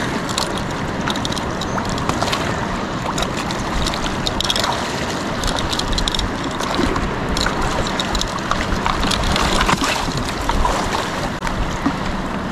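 Waist-deep surf water sloshing and lapping around a wading angler, with wind on the microphone; many small splashes crackle through it.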